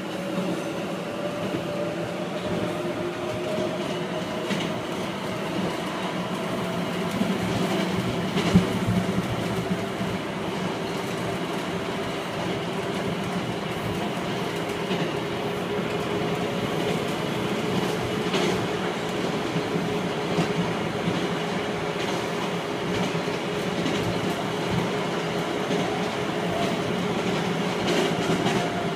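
A Miami Metrorail car heard from inside while it runs along elevated track: steady wheel-on-rail running noise with a whine from the traction motors that slowly drifts in pitch. A few sharp clacks from the rails come through, the loudest about eight seconds in.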